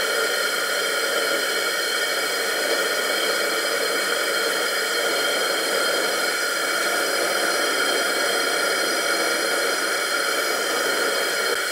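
Propane turkey-fryer burner firing into a small firebrick kiln: a steady, even rush of burner noise with a few faint steady tones in it. The kiln is holding a steel knife blade at heat past non-magnetic for hardening.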